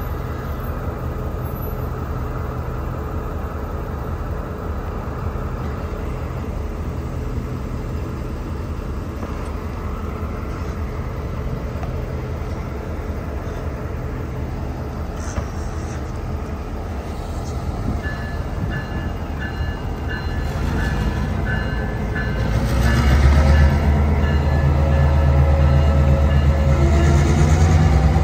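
Diesel locomotives running on a turning railroad turntable: a steady low engine rumble that swells louder about twenty seconds in.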